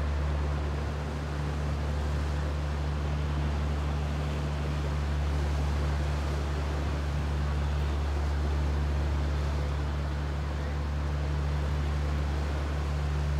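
Motorboat engine running steadily, heard on board as a low, even drone, with water wash and wind noise over it.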